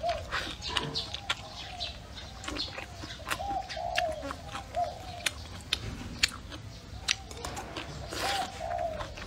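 Close-up eating sounds: sharp wet clicks of chewing and lip smacks while braised pork belly and noodles are bitten and eaten. Short arching bird calls repeat irregularly in the background.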